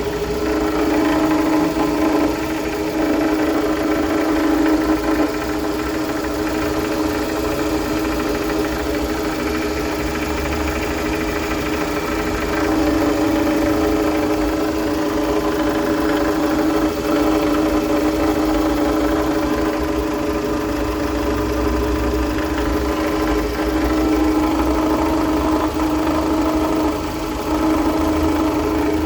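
Toyota Camry 40's 2.4-litre 2AZ-FE four-cylinder engine running steadily, with a knock that comes from worn balance shafts.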